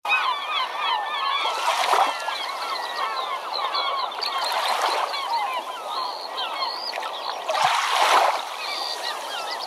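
A dense chorus of many short, squeaky animal calls overlapping one another, with surges of rushing noise about two, five and eight seconds in.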